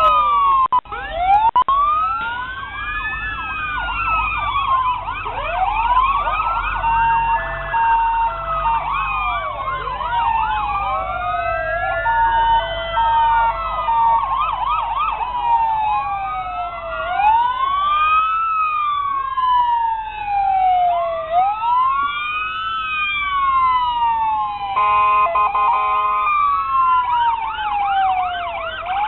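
Several fire truck sirens wailing at once, their rising and falling pitches overlapping, over a low rumble. Steady two-note tones come in twice, and a short, steady multi-note blast sounds near the end.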